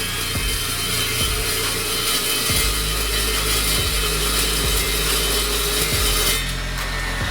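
A power tool cutting material with a steady rasping hiss, which stops about six seconds in, over a steady low hum.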